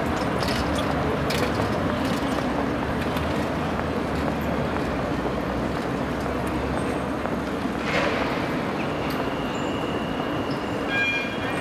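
Trams rolling through a street-track junction: a steady rumble of wheels on rail with a few sharp clicks early on and one about eight seconds in. From about nine seconds a thin high steady whine joins.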